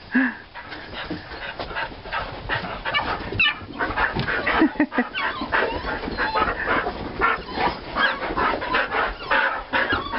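Dogs whining and giving short yelps now and then, among a steady run of short scuffing, crunching noises.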